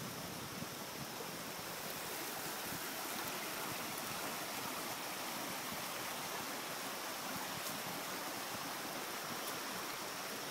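A flood-swollen creek rushing steadily: an even, unbroken noise of running water.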